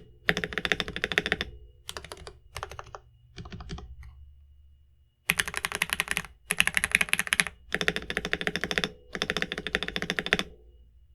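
Rapid typing on a Next Time 75 mechanical keyboard with Gateron Milky Yellow switches, a deep keystroke sound from a hollow case. The typing comes in runs of about a second each, softer in the middle and louder from about five seconds in, and stops near the end.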